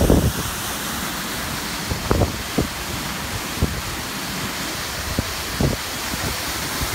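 Steady rush of falling water from an artificial waterfall cascading down rockwork, with wind buffeting the microphone in several short low thumps.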